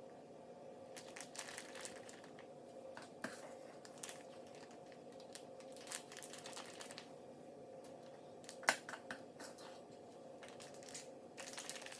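Plastic zip-top bag crinkling and rustling as it is handled and filled with batter, in irregular bursts over a steady low hum, with one sharper click about two-thirds of the way through.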